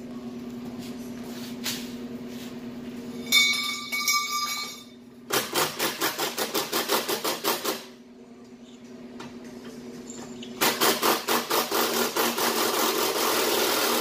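Milwaukee cordless reciprocating saw with a Torch metal-cutting blade sawing through a steel exhaust pipe. A short, ringing screech comes as the blade bites about three seconds in, followed by two longer runs of fast, rhythmic cutting strokes that each stop abruptly.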